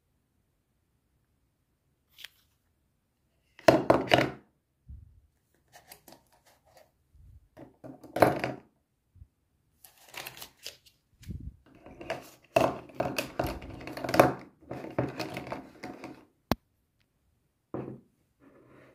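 Plastic pens and highlighters being handled and dropped into a frosted plastic pen cup: several bursts of clatter and knocking, with a sharp click about three-quarters of the way through.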